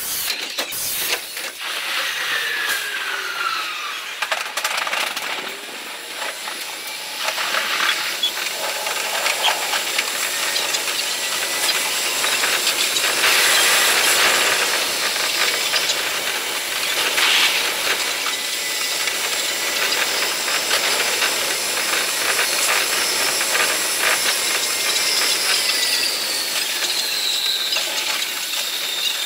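A train's running sound played at five times speed, heard from the driver's cab: a dense, high clatter and hiss of wheels over the rails, with a whine that glides down in pitch a couple of times as the train moves off and runs.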